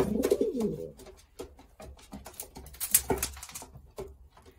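Racing pigeon cooing low for about the first second, then scattered sharp clicks and scuffles from the birds moving in the box, with a louder rustle about three seconds in.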